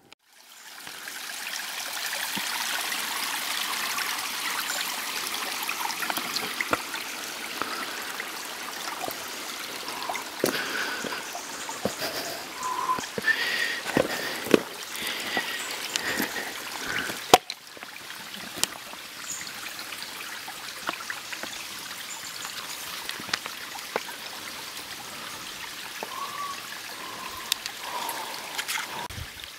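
Steady rush of a flowing mountain stream, dropping a little in level after a short break about two-thirds of the way through. Scattered light clicks and a few short chirps sound over it.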